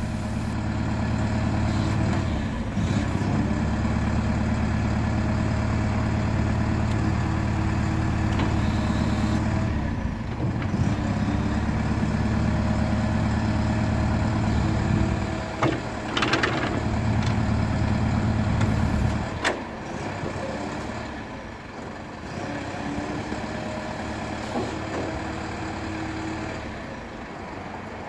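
DAF LF45 refuse truck running its bin-lift hydraulics: the engine drones steadily at raised revs under the hydraulic load in three long spells, dropping briefly between them. Sharp metal clunks from the lift gear come around the middle and again near the two-thirds point, after which the engine settles to a quieter idle.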